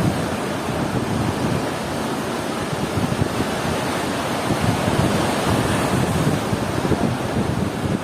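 Ocean waves washing onto a beach in a steady surf, with wind buffeting the microphone.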